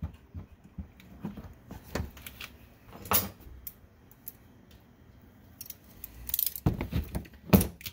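Scattered light metallic clinks and clicks of hand tools and hardware being handled, with a cluster and the sharpest clink near the end.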